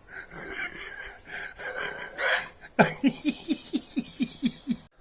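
Breathy giggling that breaks, about three seconds in, into a quick run of about nine short laughs, each falling in pitch.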